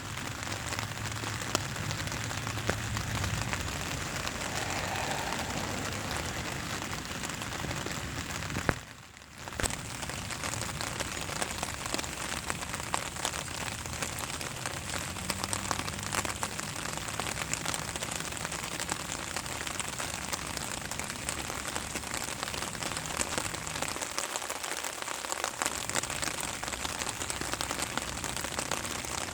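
Steady rain falling on a surface, an even hiss with scattered drop clicks. About nine seconds in there is a sharp knock, then a brief drop in level.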